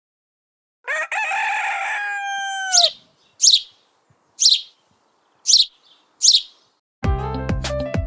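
A rooster crowing once, followed by five short high chirps of a small bird; background music starts near the end.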